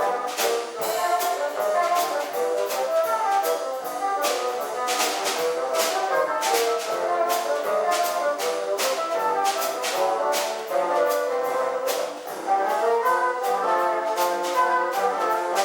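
Instrumental ensemble music: wind instruments play a busy melody over frequent sharp percussive strokes.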